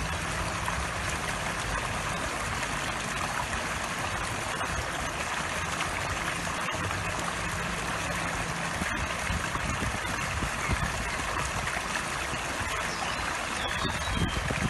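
A garden fountain's water jet runs steadily, gushing from a spout and splashing into a pond with an even, unbroken rush.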